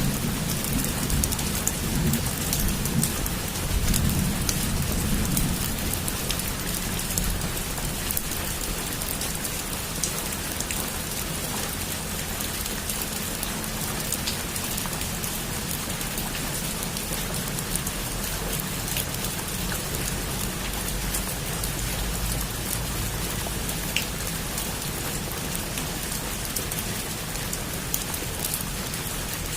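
Heavy rain falling steadily, with many sharp individual drop hits. A low rumble of distant thunder sits under it for the first several seconds, then eases off.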